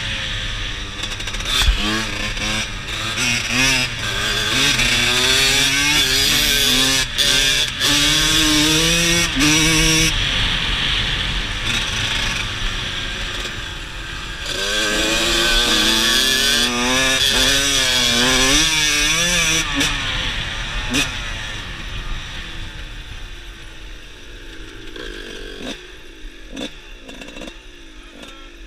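Small-displacement dirt bike engine being ridden hard, revving up with its pitch climbing and dropping at each gear change, under heavy wind rush on the microphone. About twenty seconds in the rider backs off and the engine falls to a lower, quieter running as the bike slows.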